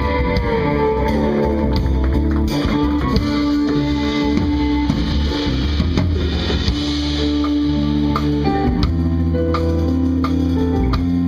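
Jazz-fusion instrumental played live by a band of electric guitar, keyboards, bass and drums, with held melody notes over a steady bass and drum groove.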